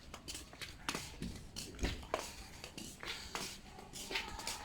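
Irregular light clicks and knocks, about a dozen short handling noises with no steady sound between them.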